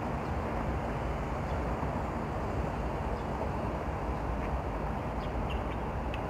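Steady traffic noise from the elevated expressway running beside and over the harbourfront, with a few faint short high chirps near the end.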